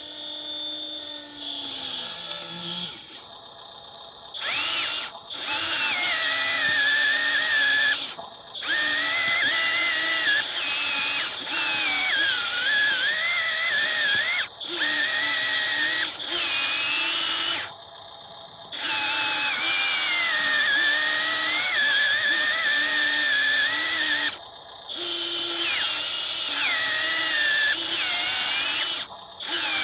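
Electric motors of an E598 RC excavator whining as it digs, the pitch wavering and shifting as the controls change. The whine stops briefly several times between moves and starts again.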